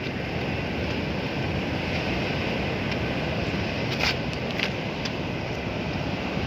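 Ocean surf breaking and washing onto the shore, a steady rushing noise, with a couple of brief clicks about four seconds in.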